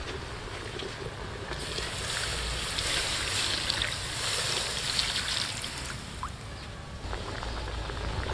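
Coconut water poured from a fresh coconut into a wok of braising pig stomach, splashing steadily into the liquid for about four seconds, starting about two seconds in.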